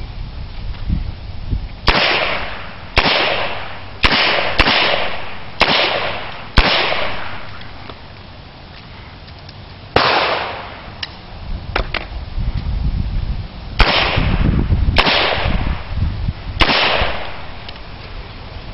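Handgun firing about ten shots, each with a short echo off the range. Six come roughly a second apart, then after a pause of about three seconds four more follow at wider spacing.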